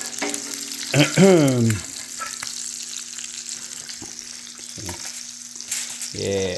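Bacon and eggs sizzling on an electric flat-top griddle, with a steady frying hiss and a few sharp clicks of the spatula. About a second in, a short hummed or sung voice sound bends up and down.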